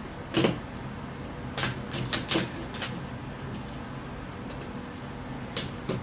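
Hands handling a toy package: a few scattered short clicks and rustles of plastic and paper, in a small cluster partway through and two more near the end.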